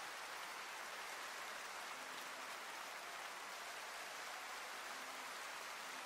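Faint steady hiss with no clear source, and a few very faint brief tones in the background.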